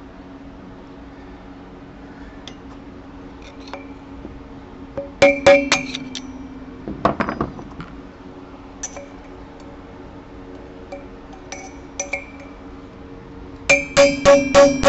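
Hammer striking a steel drift set against a stuck wheel bearing spacer in a motorcycle front wheel hub, each blow ringing like struck metal: a few blows about five seconds in, a couple more around seven seconds, then rapid steady hammering at about four strikes a second near the end. A steady low hum runs underneath.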